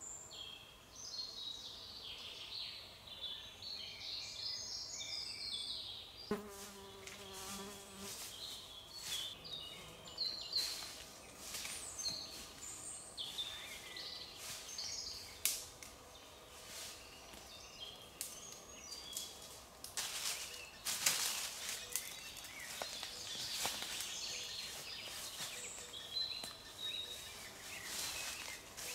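Forest ambience: small birds chirping on and off, an insect buzzing close by for about two seconds starting around six seconds in, and scattered sharp clicks and snaps.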